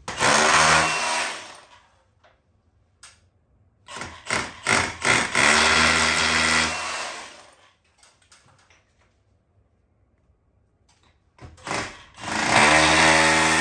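Cordless SDS Plus rotary hammer drilling into a wall in three runs: a short one at the start, a longer one after a few quick trigger pulls about four seconds in, and another near the end.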